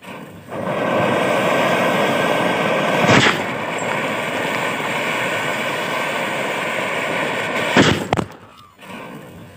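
Anar (pomegranate) fountain fireworks set in watermelons, burning with a steady loud hiss of spraying sparks. Two sharp bangs break through it, about three seconds in and again near eight seconds, after which the hiss drops away.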